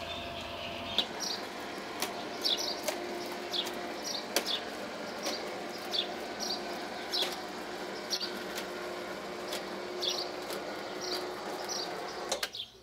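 Hairdressing scissors snipping through hair in short, quick cuts, about one or two snips a second, over a faint steady background.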